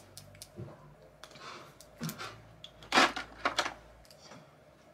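Small objects being handled: a string of short clicks and brief rustles, with the loudest clack about three seconds in.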